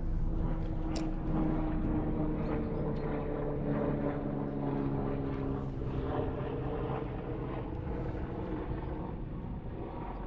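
An engine running steadily, its pitch drifting slowly up and down.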